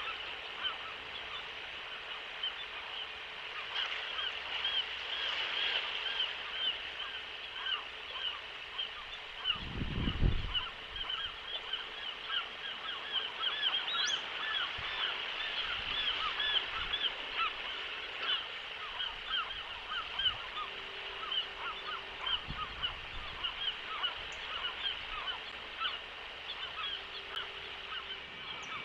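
A chorus of gulls calling, many short overlapping calls in quick succession with no let-up. About ten seconds in there is a brief low rumble.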